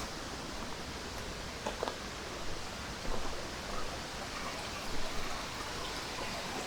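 Steady rush of a mountain stream flowing over rocks, an even hiss of water with a few faint ticks and splashes in it.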